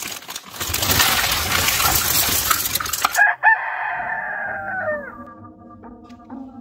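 A dense rustling, rattling noise for about three seconds that cuts off sharply, then a rooster crowing once: a long call that drops in pitch at its end, followed by a few short fainter notes.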